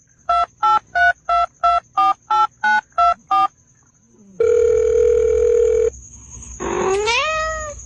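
Touch-tone telephone keypad dialing: about ten short beeps, roughly three a second, each a pair of tones. It is followed by a steady tone lasting about a second and a half and a short rising sound near the end, over a faint steady high whistle.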